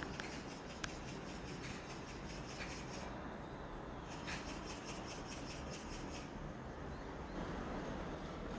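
Small birds twittering faintly in quick high-pitched runs of chirps, twice, over a steady background hiss, with one sharp click about a second in.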